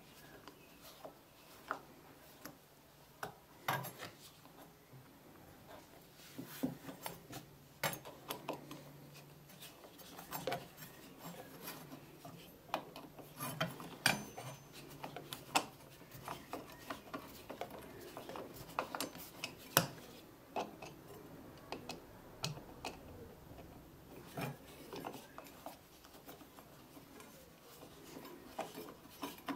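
Screwdriver turning slotted screws into the metal plates on an antique wooden plane: irregular clicks and short scrapes of the steel tip in the screw slots.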